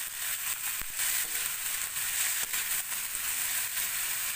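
Cut yardlong beans (sitaw) sizzling in hot oil in a wok with sautéed garlic, onion and tomato, while a spatula stirs them and scrapes and clicks against the pan.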